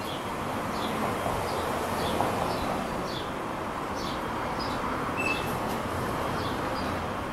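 Small birds chirping, short falling chirps repeated every half second or so, over a steady rumble of passing traffic.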